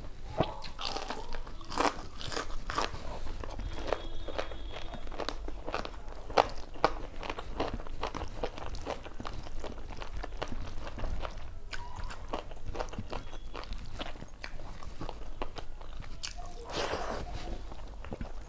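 Close-miked biting, crunching and chewing of crisp fried pakoda fritters: many short crunches and small clicks throughout, with a denser run of crunching near the end.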